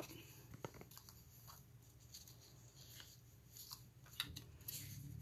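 Faint rustling and a few light taps of cardstock pieces being handled and laid on a table.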